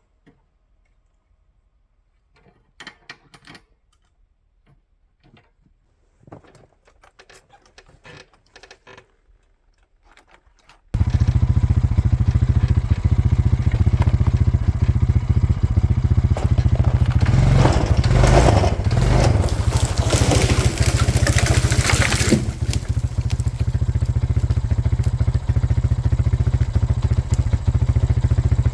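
Faint scattered clicks and rustles, then an ATV engine cuts in abruptly and runs steadily and loudly. It gets louder and rougher for about five seconds in the middle while the ATV pulls on the chain to drag a hung-up dead tree loose.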